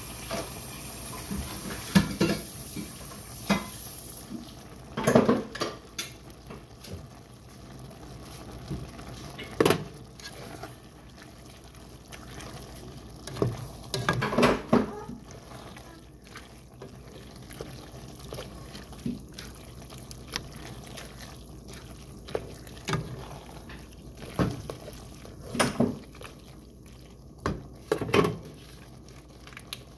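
A utensil scraping and knocking against a pan while stirring macaroni and ground meat in a simmering cheese sauce, in irregular clusters of sharp clacks over a steady low bubbling.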